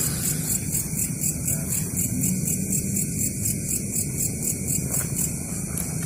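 Night insects chirping in a high-pitched, even rhythm of about four pulses a second, which stops shortly before the end, over a steady low rumble.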